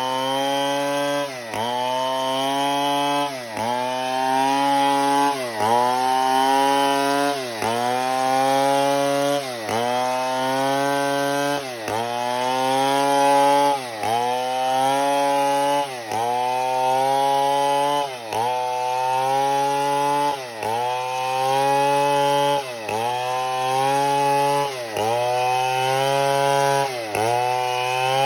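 Chainsaw running hard while cutting wood, its engine pitch dipping sharply and climbing back about every two seconds as the chain bites and frees.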